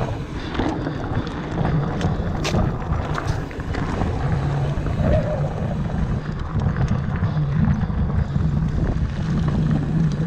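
Mountain bike rolling fast over a dirt singletrack: a steady rumble of tyres on dirt with a low hum, wind buffeting the microphone, and a few sharp rattles and knocks from the bike about two and a half to three and a half seconds in.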